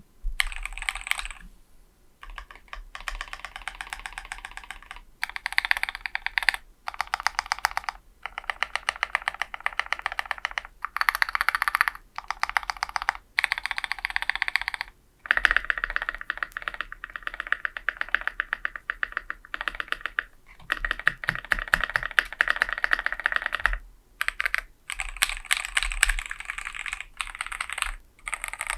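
Fast typing in bursts with short pauses on a custom 60% mechanical keyboard: a KBDfans Blade60 aluminium case with a DZ60 RGB V2 PCB and lubed, filmed EQUALZ Tangerine V2 linear switches. About halfway through, the typing gives way to the spacebar, on lubed Durock V2 stabilizers, being pressed over and over.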